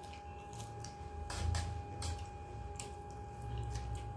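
Close-up eating sounds: chewing a mouthful of rice and curry eaten by hand, with wet mouth smacks and clicks about once a second, the loudest about a second and a half in. A faint steady tone hums behind.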